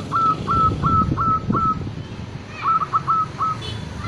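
Zebra dove (perkutut) singing its staccato cooing song: a run of about five short, evenly spaced coos, a pause, then about four quicker coos.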